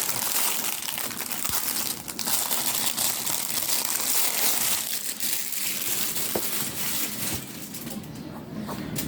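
Plastic packaging crinkling and crackling as it is handled and unwrapped, easing off near the end.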